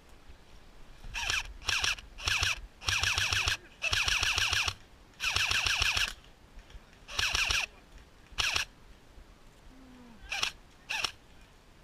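G&G M4 airsoft rifle firing in rapid full-auto bursts: about ten bursts, a few short, three longer ones in the middle, and two quick ones near the end.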